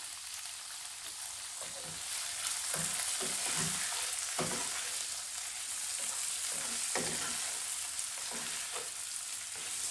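Tofu cubes and aromatics sizzling in hot oil in a non-stick wok while being stirred with a spatula. A few short scrapes and knocks of the spatula against the pan stand out, and the sizzle grows a little louder about two seconds in.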